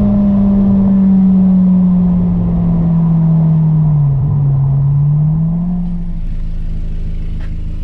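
Honda S2000's four-cylinder engine breathing through an AEM V2 intake, its note falling slowly as the car comes off a pull. The tone dips lowest about four seconds in, lifts a little, then settles quieter and steadier from about six seconds.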